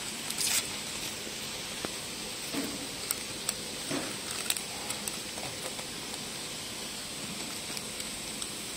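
A few small clicks and soft paper rustles from hands handling a label roll and the labeler's rollers, over a steady background hiss.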